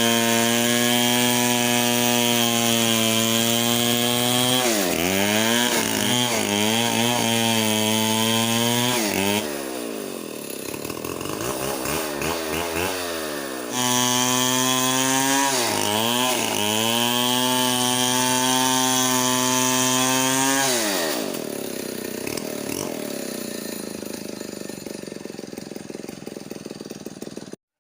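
Petrol chainsaw running at high revs, cutting wood, its pitch dipping briefly under load twice. It drops back to a slower, quieter idle about ten seconds in and revs up again a few seconds later. After about 21 s it settles back down, and the sound cuts off just before the end.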